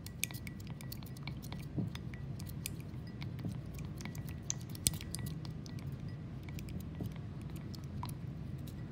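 A wooden stirring stick clicking and scraping against the sides of a ceramic bowl as a wet glitter-glue slime mixture is stirred, with irregular quick clicks, thickest in the first half.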